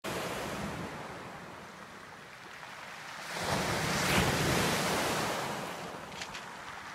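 Small lake waves breaking and washing over a pebble beach, the loudest wave swelling about three and a half seconds in and fading over the next couple of seconds.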